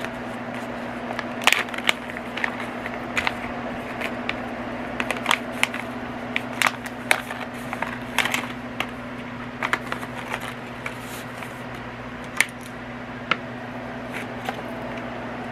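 Hands handling the small accessories of a diamond painting toolkit and their packaging: irregular light clicks, taps and crinkles over a steady low hum.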